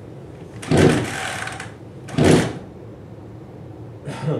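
Gasoline chainsaw's recoil starter cord pulled three times, each pull a short rasp, the first the longest. The engine does not catch between pulls.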